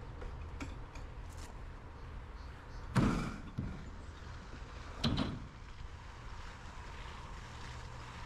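Ramp door of an enclosed cargo trailer being lowered: two heavy bangs about two seconds apart, the first the louder.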